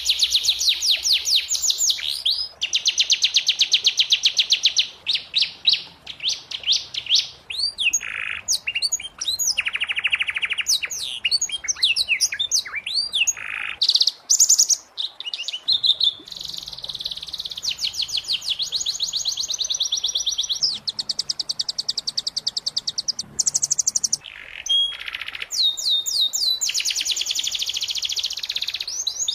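Domestic canary singing: high, fast rolling trills that switch to a new trill every few seconds, broken by brief pauses and single sharp chirps.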